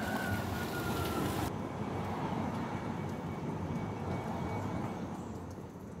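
Low rumble of a passing vehicle, swelling early and then fading away.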